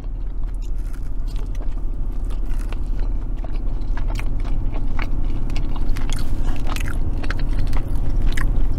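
Close-miked chewing and mouth sounds of a person eating a fried macaroni-and-cheese ball whose breading has gone soft, with short clicks and a plastic fork scraping in a plastic container, over a steady low hum.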